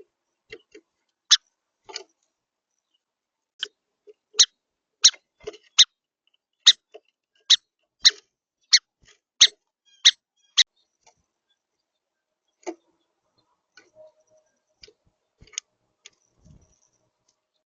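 Irregular sharp clicks and taps of a small bird, a song sparrow, pecking and moving about on a seed feeder. The clicks are dense for about ten seconds, then thin out to a few faint taps.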